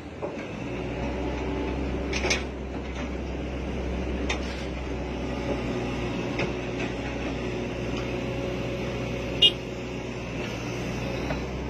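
Hydraulic excavator's diesel engine running steadily under load, heard from the operator's seat, its note firming up about half a second in. A few sharp knocks and clanks from the machine sound every couple of seconds, the loudest about nine and a half seconds in.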